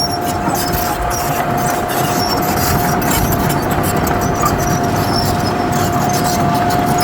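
Heavy earthmoving machinery running steadily, with a continuous high whine over the engine and mechanical noise.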